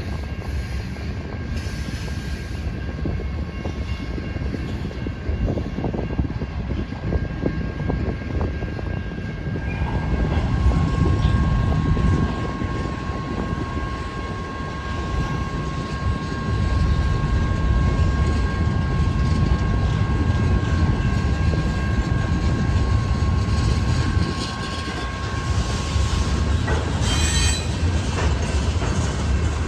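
Train rolling past with a steady low rumble and a thin, steady high-pitched squeal from its wheels.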